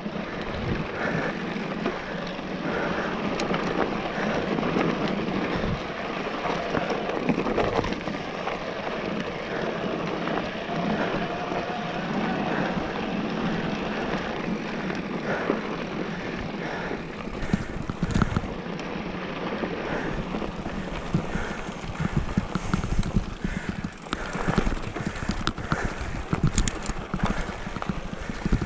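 Haibike XDURO electric mountain bike rolling down a dirt trail: steady tyre and wind noise, with frequent knocks and rattles from the bike over bumps, more of them in the second half.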